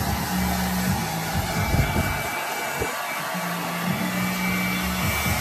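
Hair dryer running steadily, a constant airy rush, with muffled music underneath.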